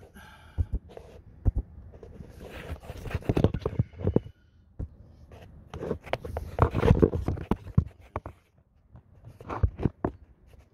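Irregular scrapes, knocks and clicks of a person shifting about on gravel under a car and handling a screwdriver, with denser clusters a few seconds in and again past the middle.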